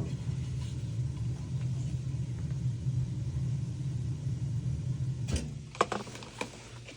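A steady low rumble that stops about five seconds in, followed by a few light clicks and knocks of small parts being handled.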